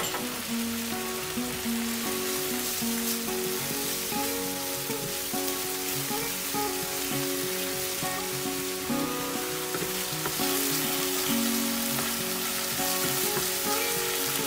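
Spiced paste sizzling as it fries in ghee in a pan, stirred with a wooden spatula. A steady background melody of held, stepping notes plays over the sizzle.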